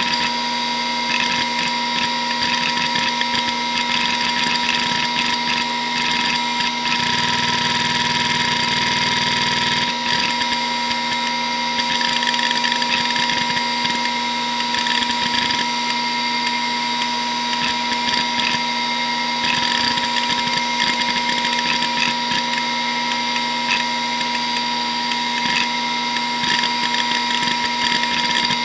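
Hitachi DK522C-10 hard drive spinning with a steady whine while its heads seek in rapid, irregular clicks and chatter as it reads data during a Windows 95 boot. A deeper hum joins for a few seconds about seven seconds in.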